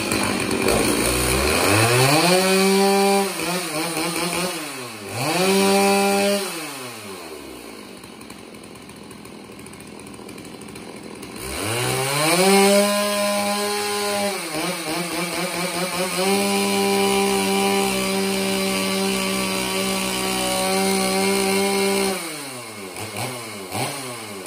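Stihl MS 390 two-stroke chainsaw with a freshly dual-ported muffler, revved to full throttle and dropped back to idle several times. The last rev is held for about six seconds and is followed by a few quick blips. The carburettor has not yet been retuned for the mod, and its high-speed jet still needs opening up.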